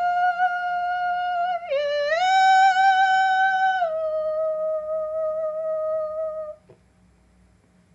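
A woman's voice holding a long wordless high tone: the Basque vocal sound of letting go, made for the final passage from this life to the other side. The note dips and rises about two seconds in, steps down slightly about four seconds in, and stops about two-thirds of the way through.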